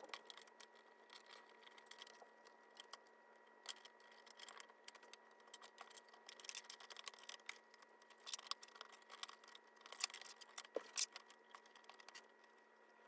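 Faint, irregular small clicks and taps of hands handling laptop parts as a replacement LCD screen panel is fitted into a ThinkPad T41, over a faint steady electrical hum.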